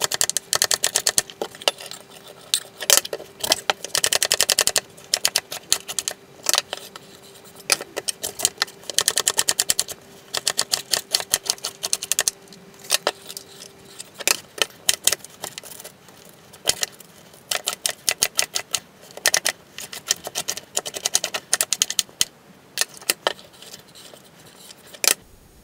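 Chef's knife chopping white cabbage on a wooden cutting board: quick runs of sharp knocks of the blade on the board, with short pauses between the runs.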